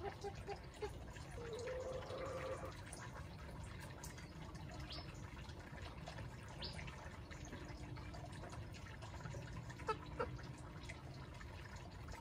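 Faint outdoor yard ambience: a steady low rumble, with a short soft low call about two seconds in and a few faint high chirps and small clicks later on.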